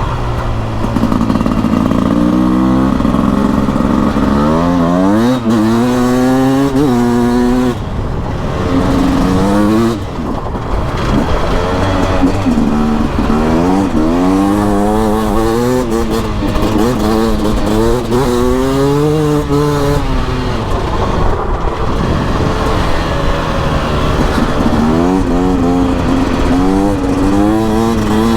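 Beta RR 300 single-cylinder two-stroke enduro engine under riding load, its pitch climbing in repeated sweeps and dropping back as the throttle is opened and closed.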